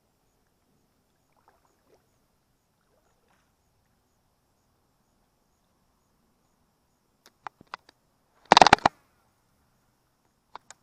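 A few sharp clicks, then a short, loud clatter of rapid knocks lasting under half a second, and two more clicks near the end.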